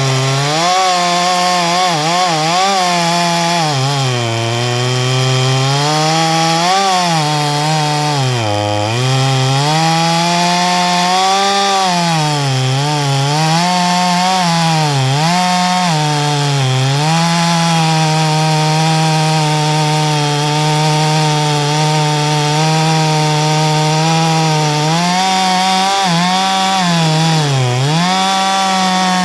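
Ported two-stroke chainsaw at full throttle, cutting through wood. Its engine pitch dips again and again as the chain loads up in the cut, then recovers, with deeper bogs about a third of the way in and near the end.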